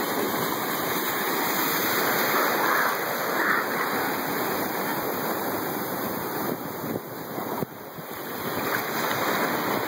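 Ocean surf washing and breaking in shallow water, a steady rushing noise that dips briefly about seven seconds in.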